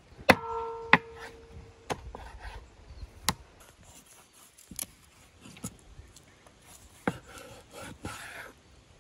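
Kitchen knife chopping a skinned rabbit carcass into pieces on a wooden cutting board: about seven sharp, irregular knocks of the blade into the board. The first and loudest rings with a metallic tone for about a second. Quieter scraping and handling of the meat comes between the knocks.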